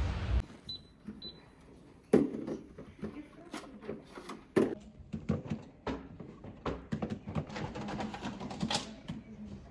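Toddlers handling hard plastic toys in a small room: irregular clicks, clacks and knocks, starting about two seconds in with the sharpest knock. Two faint short beeps sound about a second in.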